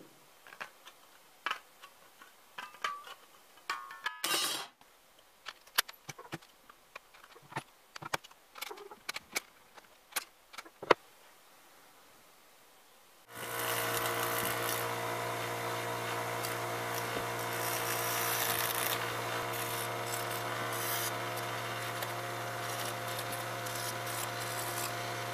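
Aviation tin snips cutting the thin spring steel of a kataba saw blade, heard as irregular sharp snips and clicks. About thirteen seconds in, a bench grinder starts up and runs steadily with a hum and a hiss as the steel blank is ground against the wheel to shape its curved edges.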